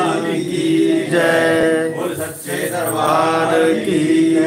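Sanskrit mantras chanted aloud in a slow, sing-song way, with syllables drawn out for about a second at a time between short breaks.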